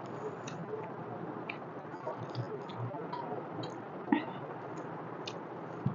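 Close-miked eating sounds: chewing with small wet lip smacks and clicks, and fingers squishing rice and curry on the plate. A sharper click comes about four seconds in.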